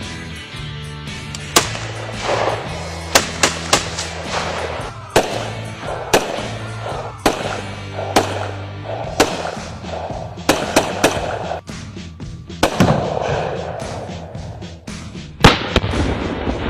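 AR-15 rifle shots fired one at a time at irregular intervals, more than a dozen sharp cracks, over background music.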